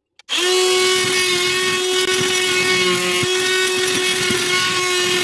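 Corded or cordless power tool starting up about a third of a second in and running steadily at full speed with a constant whine, cutting an access hole through wooden floorboards.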